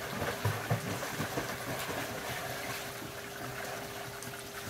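A coin scratching the coating off a scratch-off lottery ticket in short scrapes, over the steady rush of running pool water and a faint steady hum.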